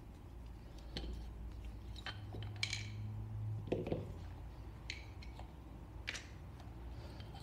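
Scattered light metallic clicks and scrapes of gun parts being handled as the trigger group is worked out of an AR-15-style carbine's lower receiver.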